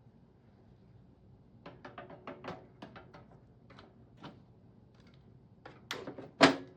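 Hardware being handled in a server's metal chassis: a run of small clicks and knocks, then a few louder knocks near the end, the loudest a single thunk.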